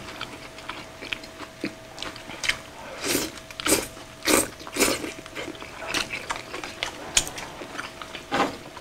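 Close-miked chewing of mouthfuls of kimchi and grilled pork belly: wet, smacking mouth sounds at uneven intervals, busiest around the middle.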